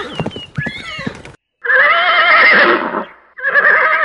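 Horse-whinny sound effect: two long wavering neighs, the first starting under two seconds in, the second near the end. Before them comes a second or so of clicking, rustling noise.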